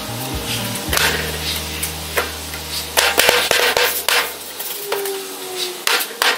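Hands rubbing and wiping across a chipboard shelf board set in a steel bench frame, with several sharp knocks of wood against the frame.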